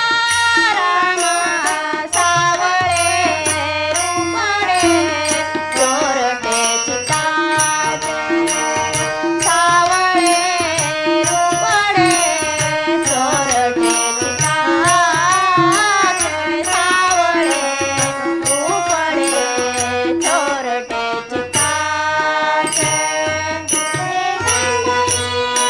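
Marathi devotional abhang music: a gliding, ornamented melody over a steady rhythm of low drum strokes and regular high metallic ticks.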